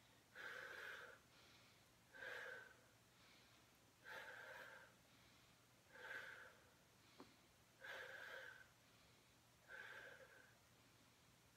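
A woman breathing out hard and rhythmically as she exercises, six short breathy exhales about two seconds apart, paced to Pilates single leg kicks. There is a faint click about seven seconds in.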